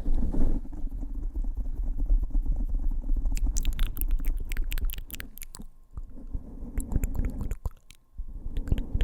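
Close-miked ASMR mouth sounds and fingers tapping and rubbing on the microphone: a low rumble full of quick, wet clicks, thinning out after about five seconds.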